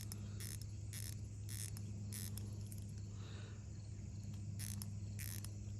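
Short high chirps from insects, repeating about two or three times a second over a steady low hum.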